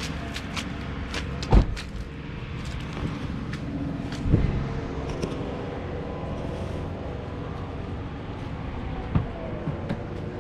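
Car engine idling, with scattered clicks and three loud thumps, about one and a half, four and nine seconds in.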